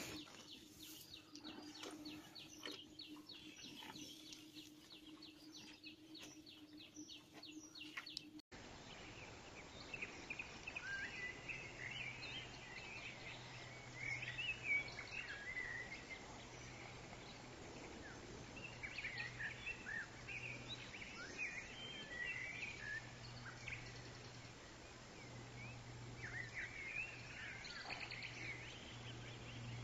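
Faint outdoor background with birds chirping. For the first several seconds a rapid, evenly repeated chirp runs over a low hum; then the sound changes suddenly to scattered twittering birdsong over a low steady drone.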